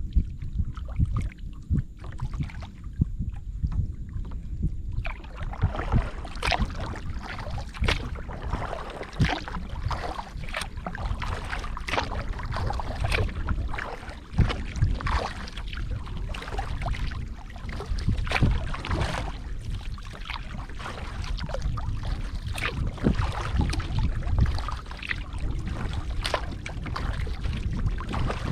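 Wind rumbling on the microphone aboard a kayak. From about five seconds in, dense, irregular water splashes and drips set in.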